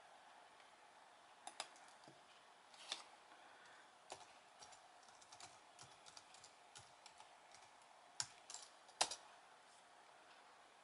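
Typing on a computer keyboard: irregular, faint key clicks, the loudest about nine seconds in, over a faint steady hum.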